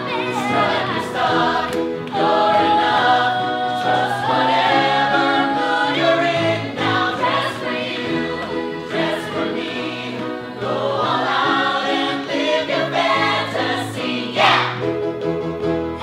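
A group of voices singing a musical-theatre number together, an ensemble of cast members over an instrumental backing whose low notes change every second or two.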